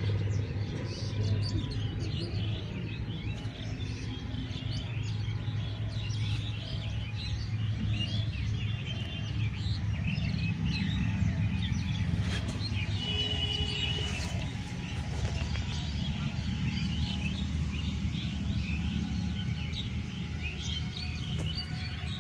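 Many wild birds chirping and calling together, a dense run of short chirps and whistles, over a steady low hum.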